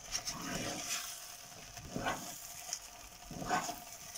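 Thick, ghee-laden rava kesari being stirred and folded in a pan with a spatula: a few slow, soft scraping strokes, the clearest about two and three and a half seconds in, over a steady light sizzle from the hot ghee and oil.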